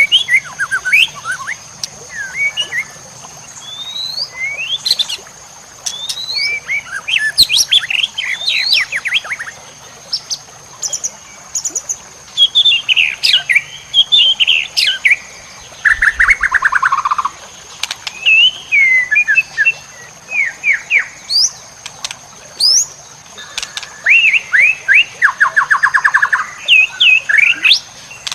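Songbird masteran recording used to train white-rumped shamas: a rapid run of sharp rising whistles, chirps and varied phrases, with a fast rattling trill about midway and another near the end. A steady high-pitched whine runs underneath.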